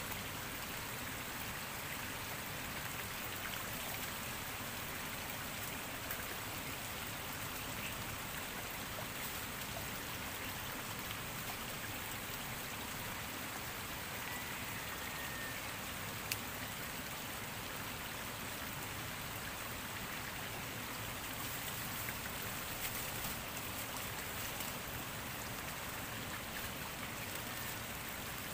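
Shallow stream running fast over its bed: a steady, even rush of water, with one sharp click about halfway through.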